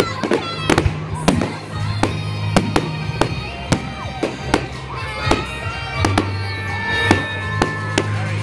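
Fireworks going off at a display: a string of sharp bangs and cracks, several a second at first and more spaced out later, over music with a steady bass line.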